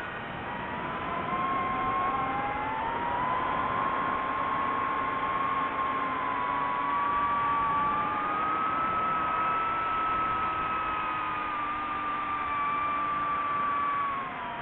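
DJI FPV drone's motors and propellers whining over a steady rush of air. The pitch climbs slowly and holds, then falls near the end as the throttle changes.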